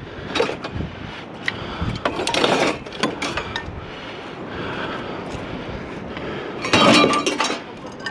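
Aluminium scrap being handled and loaded: a string of metal clinks and knocks, with a louder clatter about two seconds in and another near the end.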